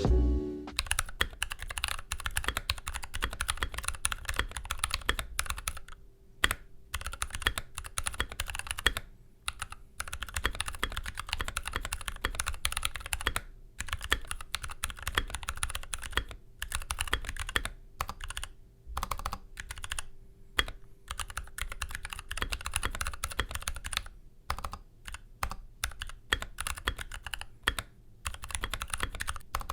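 Typing on an NK65 Entry Edition 65% mechanical keyboard fitted with C3Equalz x TKC Dragonfruit tactile switches and PBT keycaps: fast runs of keystroke clacks with a few short pauses between bursts.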